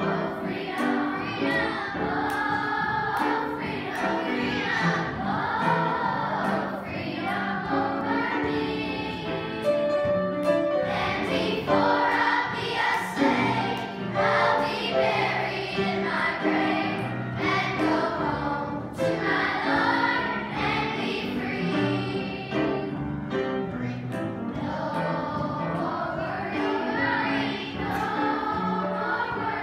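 Children's choir singing a song together, the voices carrying on without a break.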